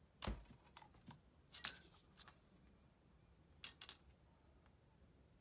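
Faint, scattered clicks and taps from handling small craft parts (a foam eye disc with a wire pin and a marker pen) on a cutting mat, about half a dozen in all, the sharpest about a quarter second in.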